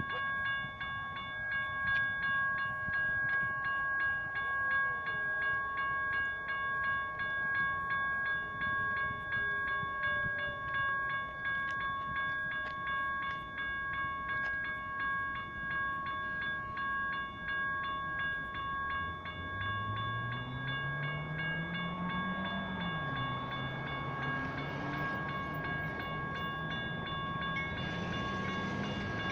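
Railroad crossing bells (General Signals Type 1) ringing continuously as the crossing activates and the gates lower. From about twenty seconds in, a low engine note rises in pitch and then holds, and a broader rumble builds near the end.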